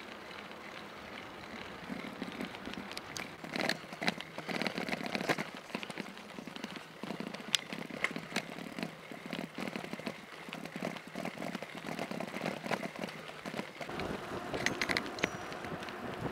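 Bicycle rolling along, partly over cobblestones: steady tyre noise with a dense, irregular run of clicks and rattles from the bike.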